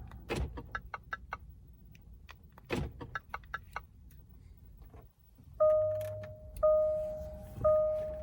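Two short runs of quick clicks in the Jaguar XJ's cabin, then from about five and a half seconds in the car's electronic warning chime, a single pitched beep that fades out, repeating about once a second.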